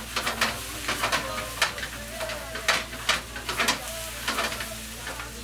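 Rice sizzling in a frying pan over a gas flame as a spatula stirs it, clacking and scraping against the pan in quick, irregular strokes.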